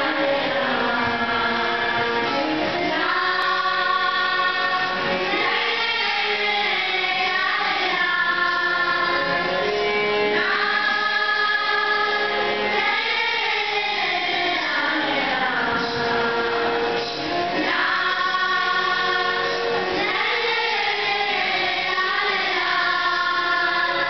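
Children's choir singing a song together, mostly girls' voices, amplified through stage microphones.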